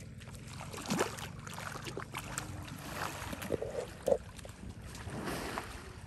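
Water sloshing and splashing around an elephant swimming across a river, with a steady low rumble of wind on the microphone. A few sharper splashes, the loudest about four seconds in.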